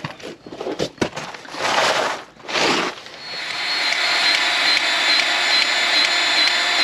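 A few knocks and two rasping scrapes, then from about three seconds in a steady motor-driven machine running with a high, thin whine.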